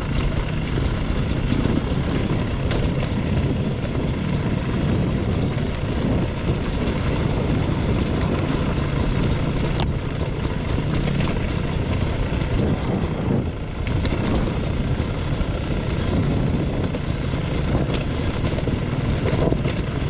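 Dirt bike engine running steadily while riding a rough off-road trail, with constant rattling and small knocks from the bike over the ground.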